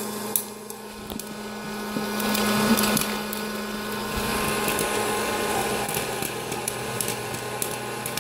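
Hot-air popcorn popper running: a steady whir of its fan and heater, with scattered light pops and ticks as kernels pop and are blown out of the chute into the bowl.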